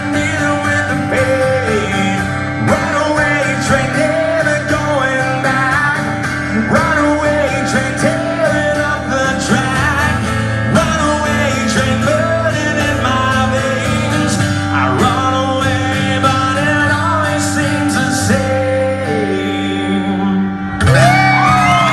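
Live acoustic rock performance: a man singing over a strummed acoustic guitar. Near the end the song stops and a crowd breaks into loud cheering and whoops.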